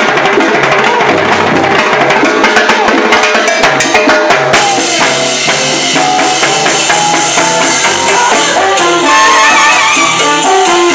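Live salsa band: timbales and cymbal strikes lead over the bass for the first few seconds, then about four and a half seconds in the full band comes in with sustained pitched instruments.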